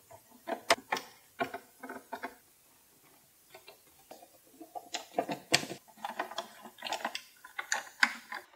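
A Torx screwdriver turning small screws out of a plastic instrument cluster housing: irregular small clicks and clatters, a short lull about a third of the way in, then quicker clicking toward the end.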